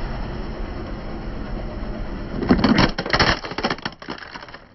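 A car rolls slowly over asphalt, then a hard plastic toy truck cracks and snaps under its tyre about two and a half seconds in: a burst of loud cracks over about a second, followed by a few smaller cracks as the pieces break apart.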